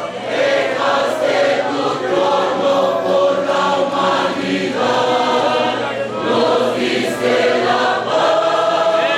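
Choir singing a hymn in held, sustained notes that change pitch every second or so.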